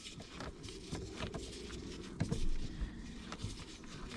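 Faint scattered clicks and scrapes of a screwdriver and door trim being handled as a car's door card is taken apart, with a slightly louder cluster of clicks a little past two seconds in.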